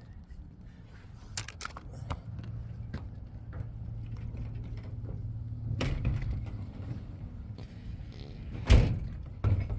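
Knocks and clatter of gear being handled and packed into a vehicle: scattered sharp clicks, then a heavy thump near the end and a second one just before it stops.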